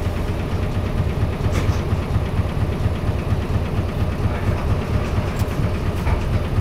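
Isuzu KC-LV280N city bus's V8 diesel engine running, heard from inside the bus as a steady low drone.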